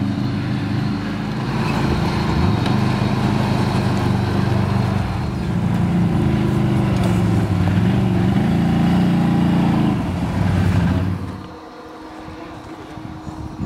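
Quad ATV engine running under throttle, its pitch rising and falling with the throttle. About eleven seconds in it drops to a quieter, lower running note.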